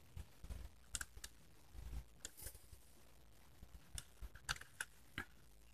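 Faint, irregular clicks and taps of a plastic Merlin Gerin miniature circuit breaker being handled and turned over in the fingers.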